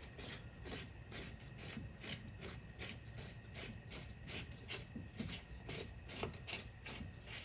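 Thumb screw holding the side cover of a DeWalt cordless chainsaw being turned in by hand, a faint rasping scrape repeated about two to three times a second.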